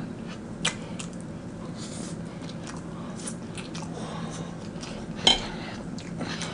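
Close-miked eating: a man chewing a mouthful of spaghetti, with soft wet mouth clicks throughout and two sharper clicks, one about half a second in and one about five seconds in, over a faint steady low hum.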